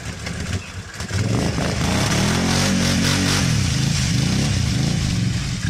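ATV engine revving under load as the quad churns through deep mud and water. Quieter for the first second, then the engine climbs and its pitch rises and falls repeatedly as the throttle is worked.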